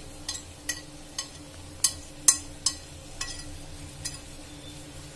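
Spoon clinking against a pot of boiling water as spices are added: about eight sharp clinks at uneven intervals, over a steady low hum.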